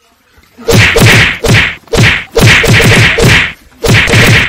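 A quick run of about nine hard punch sound effects, dubbed over a staged fistfight, starting about half a second in at two or three whacks a second, with a short gap near the end.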